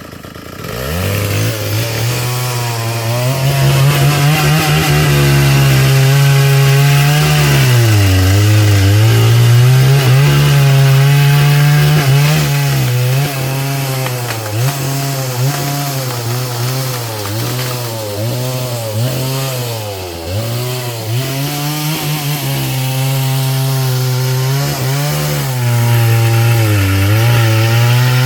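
Gas chainsaw running at high revs while cutting through a storm-felled tree, its engine pitch sagging again and again as the chain loads up in the wood, then climbing back.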